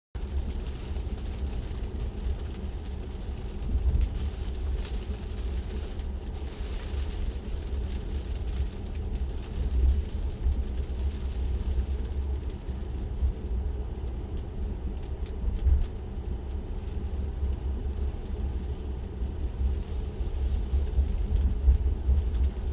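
Cabin noise of a Tesla Model 3, an electric car, driving on a rain-wet road: a steady low tyre and road rumble with a hiss of water from the tyres.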